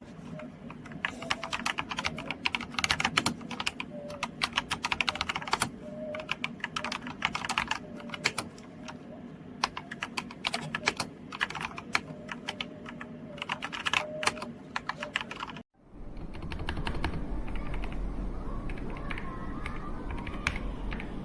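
Typing on an Aigo Darkflash GD100 mechanical keyboard: a fast, irregular clatter of keystrokes. About three-quarters of the way through it cuts off for an instant, then the typing resumes over a steady low hum.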